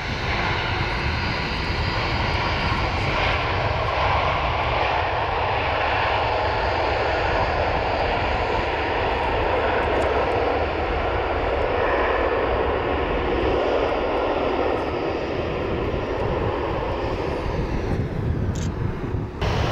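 Airbus A330-200's twin Pratt & Whitney PW4170 turbofan engines running loud during the landing rollout just after touchdown: a steady, heavy rush of jet noise with a low rumble underneath.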